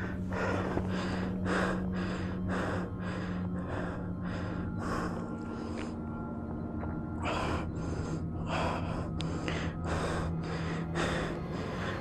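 A hiker breathing hard and heavily, gasping breaths about once a second with a short pause a little past the middle, from climbing a mountain trail under a heavy pack. A steady low hum runs underneath.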